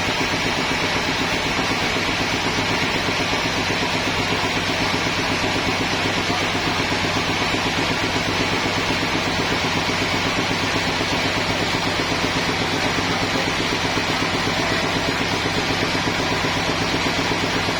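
Sawmill machinery running steadily: an engine hum holding one even pitch, with no rise, fall or break.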